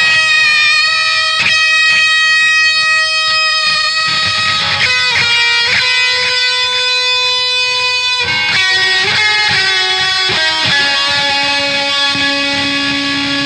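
Instrumental break in a rock song: electric guitar playing long held notes that change pitch every few seconds.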